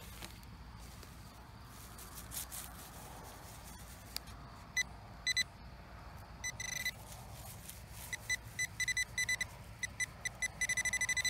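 Handheld metal-detecting pinpointer probe beeping in one high tone: a few scattered beeps at first, then a rapid run of beeps from about two-thirds of the way in that speeds up toward the end as the probe closes in on a shallow metal target.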